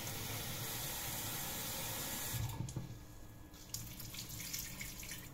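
Kitchen tap running into a stainless steel sink as rice is rinsed in a strainer under it. The water stops about two and a half seconds in, leaving softer splashing and handling in the sink.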